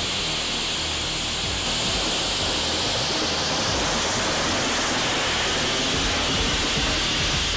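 Small steel rocket engine burning with pure oxygen, firing with a steady roaring hiss that grows a little louder about two seconds in.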